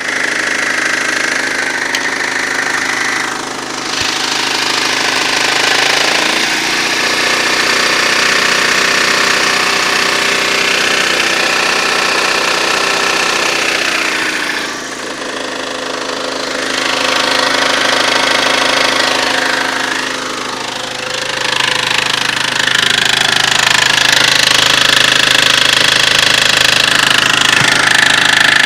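Mitsubishi 4G64 inline-four petrol engine running with a knock. Its speed rises about six seconds in, drops back around fifteen seconds, and rises again after about twenty-one seconds.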